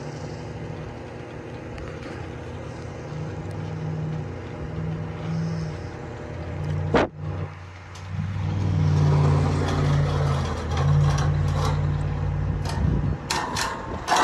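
Crane engine running under load as it hoists a flagpole upright, its revs stepping up and down and growing louder past the middle. A single sharp knock about seven seconds in and a few clicks near the end.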